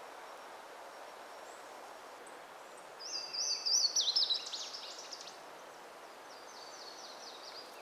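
A songbird singing a rapid phrase of high, trilled and gliding notes about three seconds in, lasting about two seconds, then a fainter phrase near the end, over a steady outdoor hiss.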